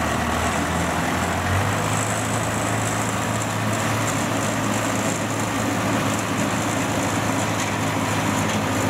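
Engine of a small tracked rice-hauling carrier running steadily as it drives across steel ramps, its note stepping up slightly about a second and a half in.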